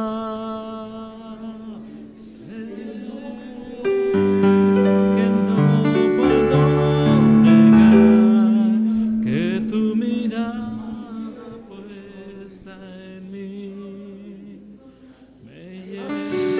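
Slow worship music on a keyboard: held chords over low bass notes. It grows loudest midway and dies down near the end before rising again.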